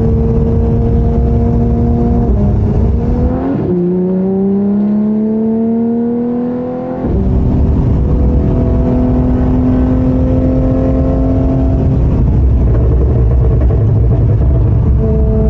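Porsche 992 GT3's 4.0-litre flat-six running through a Soul Performance competition exhaust with headers, under way at a fairly steady engine speed. A little over two seconds in the note dips, then climbs steadily for about three seconds before settling back to a steady pitch.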